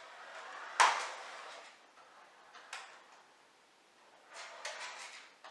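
A toy remote-control car knocks into obstacles on the floor. There is one sharp, loud knock about a second in and a lighter click near the three-second mark. Near the end come short bursts of rattling as the car moves.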